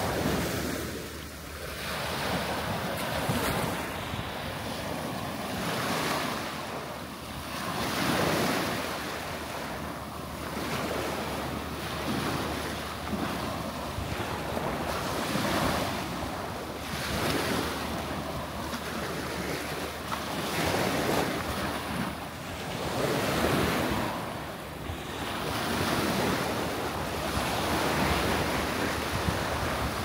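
Small sea waves breaking at the shoreline and washing up over sand and pebbles, each wash swelling and fading every few seconds.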